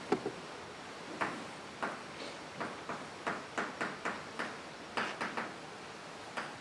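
Chalk writing on a blackboard: a string of short, sharp taps and strokes at irregular intervals, two or three a second.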